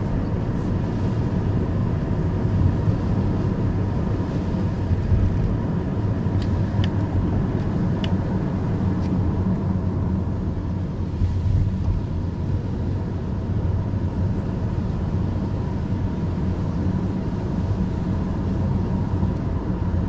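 Steady driving noise of a car heard from inside the cabin: a low engine and tyre rumble with no change in pace.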